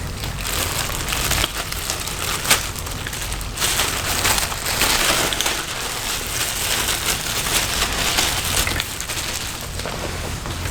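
Plastic processing cap crinkling and crackling with sharp snaps as it is worked loose from hair stuck down with sticky Nutella.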